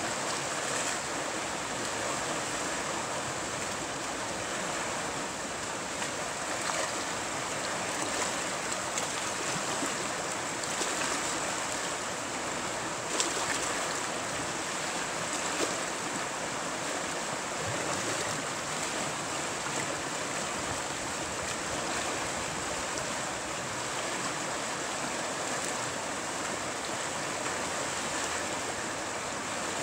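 Steady rush of river white water pouring over a shallow stony rapid, with one brief sharp click about thirteen seconds in.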